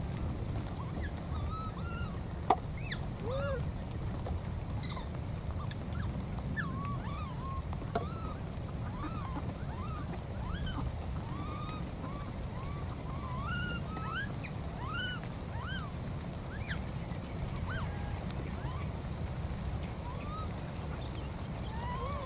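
A wet, cold baby monkey giving short squeaking calls over and over, each rising and falling in pitch, over a steady low rumble. A sharp click about two and a half seconds in and a fainter one about eight seconds in.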